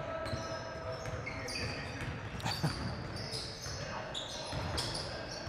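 A basketball game in play: the ball bouncing on the court, and sneakers giving many short, high squeaks on the floor throughout, with a sharp knock about two and a half seconds in.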